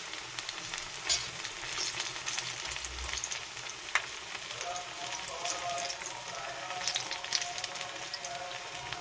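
Cooking oil sizzling in a pan: a steady hiss with many small crackles and the odd sharper pop.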